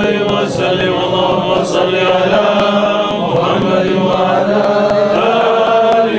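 Several men chanting Arabic prayers together, the salawat blessing on the Prophet Muhammad, in one steady, unbroken chant.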